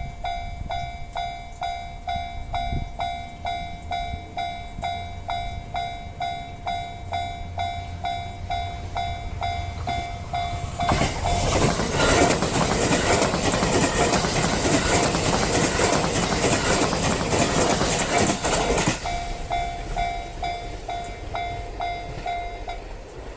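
Japanese level-crossing warning bell dinging about twice a second. About 11 seconds in, a 287 series electric limited-express train passes over the crossing for about eight seconds, louder than the bell. The bell rings on a few seconds after the train has gone and stops near the end.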